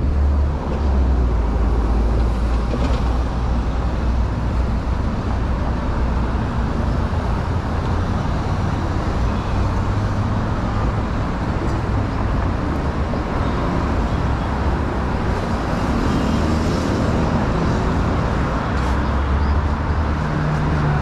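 City street traffic: a steady low rumble of passing cars and other road vehicles.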